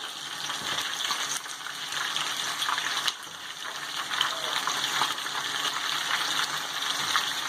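Flour-coated chicken pieces frying in a pan of hot oil: a steady crackling sizzle.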